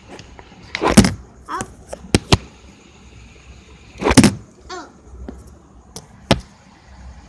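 Irregular knocks and bumps, about six of them, the loudest about a second in and about four seconds in.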